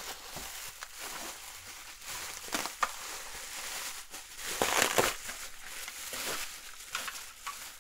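Plastic bubble wrap crinkling and crackling as it is pulled open by hand, loudest about five seconds in.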